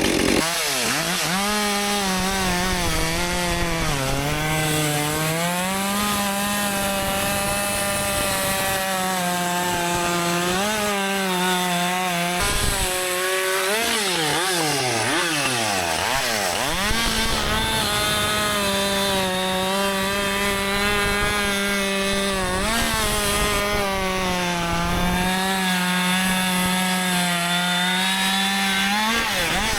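Husqvarna 564 XP two-stroke chainsaw cutting at full throttle in a long rip cut down a log, its engine note mostly steady, sagging briefly a few times and falling and climbing again for a few seconds around the middle. This is the tuning cut that lets the new saw's AutoTune set itself up.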